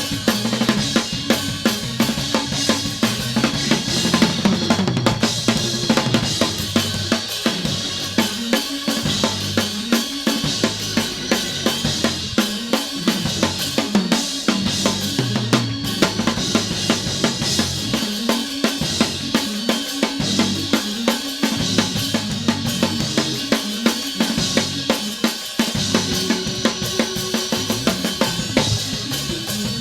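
Church band playing a fast Pentecostal praise break: a drum kit keeping a quick, steady beat of snare, kick and cymbals over a moving bass line, music for the congregation to dance to.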